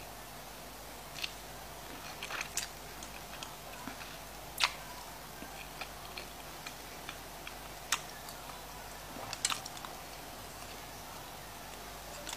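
Quiet mouth sounds of someone eating a lemon wedge: scattered sharp wet clicks and smacks of biting, sucking and chewing, one every second or two, the loudest about four and a half seconds in.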